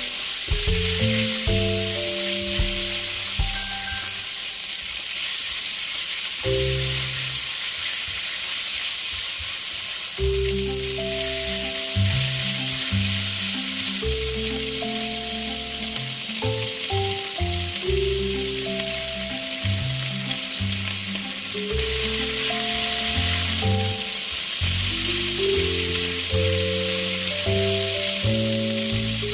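Long green peppers and salted fermented soybeans sizzling steadily as they are stir-fried in hot oil, with background music playing a simple melody.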